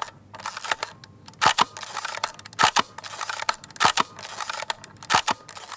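A run of sharp clicks and knocks over a faint hiss, the loudest coming about every second with smaller ones in between.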